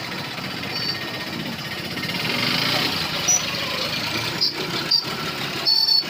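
Indistinct voices over a steady background rumble, with a few short sharp clicks near the end.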